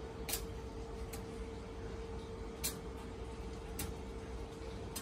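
A steady hum under three sharp, short clicks spread irregularly across a few seconds, from steel rods being handled and set upright before they are welded.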